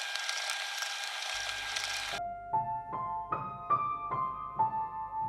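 A dense wash of hissy noise that cuts off abruptly about two seconds in, then a piano playing a slow melody of single notes, about two a second, each ringing on.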